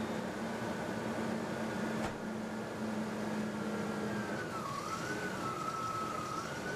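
A 2001 Ford Explorer's 4.0-litre SOHC V6 idles steadily while the automatic transmission is run through its gears, with a single click about two seconds in. A high wavering tone rises and falls from about four and a half seconds in.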